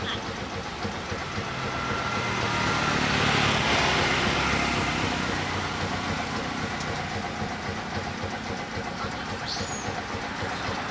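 A low engine hum under steady outdoor noise, growing louder about three seconds in and easing off again, with a brief high squeak near the end.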